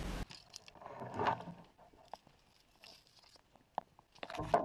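Sparse, quiet crackles and snaps of twigs and dry leaf litter as someone creeps through bush undergrowth, with a louder snap near the end.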